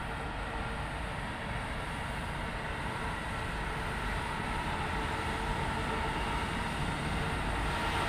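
An approaching EP2K electric locomotive hauling a passenger train: a rumble with a steady whine on top, slowly growing louder as it nears.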